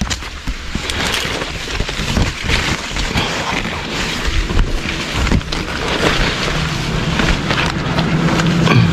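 Handling noise of the camera brushing and knocking against leaves and branches as a person climbs through a tree: dense rustling with many knocks and low thumps. A low steady hum joins about six seconds in.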